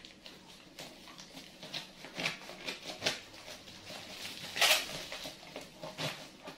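Scissors snipping through a plastic shipping bag, with the plastic crinkling and crackling in many short bursts; the loudest crackle comes a little past the middle.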